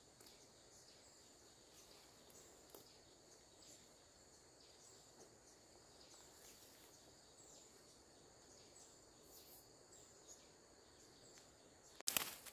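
Quiet outdoor ambience with faint, high chirping from wildlife, repeating about every half second. Near the end, sudden louder rustling and knocks.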